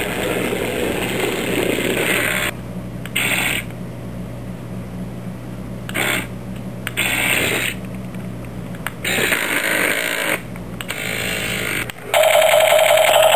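Small electric drive motors and gears of RC scale model vehicles whirring in short bursts that start and stop, over a steady low hum. About a second before the end a loud, pulsing electronic buzz starts.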